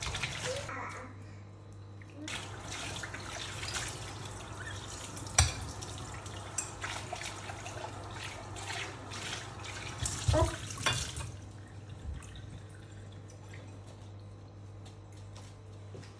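Water running from a kitchen tap and splashing in the sink, with scattered clicks and sharp knocks about five seconds in and again around ten to eleven seconds. The water stops about eleven seconds in, leaving a steady low hum.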